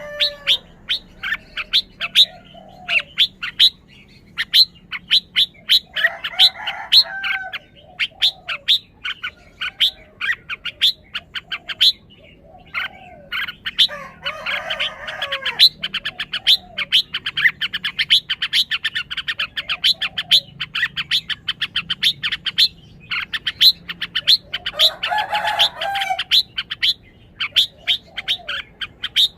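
Red-whiskered bulbul singing short warbling phrases every several seconds, with rapid sharp ticks between them that run into a fast steady series in the middle.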